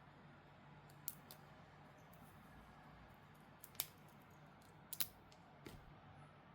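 A handful of sharp, small clicks, spaced unevenly and the two loudest about a second apart near the middle, from handling a wristwatch and its packaging, over quiet room tone with a low hum.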